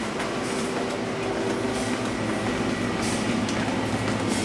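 Steady machine hum from an ECRM computer-to-plate platesetter and its plate processor running.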